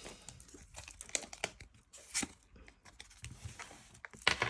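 Pokémon booster pack's foil wrapper crinkling and tearing open, in short scattered rustles and crackles.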